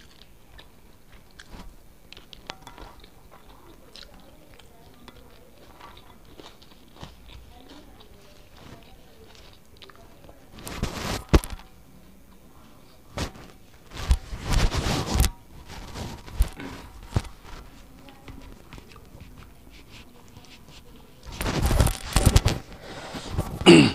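A man chewing and eating rice by hand off a banana leaf, with faint mouth and finger clicks. About ten seconds in, and again twice near the end, there are a few louder noises lasting about a second each.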